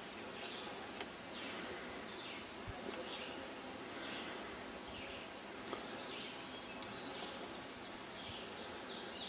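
Quiet forest ambience with short, faint high chirps repeating about once a second, and a few light knocks.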